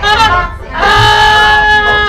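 Dixieland jazz band music: a few short notes, then about a second in, one long note is held.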